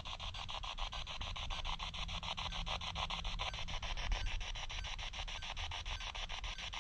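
SP7 spirit box sweeping through radio frequencies, giving a steady hiss of static chopped into rapid pulses several times a second, with no voice coming through.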